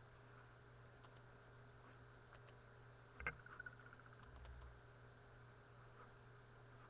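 Faint computer mouse and keyboard clicks: a few scattered clicks and a quick run of four about halfway through, over a low steady hum.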